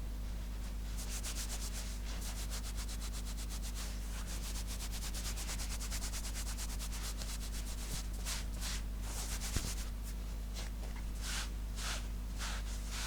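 Fingernails scratching fabric, ASMR style: quick, fast-repeating scratches, then from about eight seconds in slower, separate strokes.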